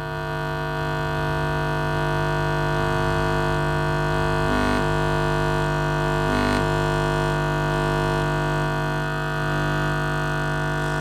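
Bare Paradigm Atom woofer, freshly refoamed and out of its cabinet, playing a steady low test tone from an amplifier, likely 50 Hz: a loud buzzy hum with many overtones as the cone makes long excursions. The sound wavers briefly twice, about four and a half and six and a half seconds in.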